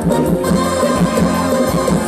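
Loud live band music played through a Thai parade sound truck's (rot hae) sound system, with drums keeping a steady beat under the melody.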